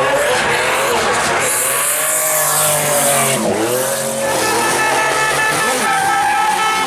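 Drift car engines revving up and down hard, with tyres squealing and spinning on tarmac. About four seconds in, a steady high tone joins and holds.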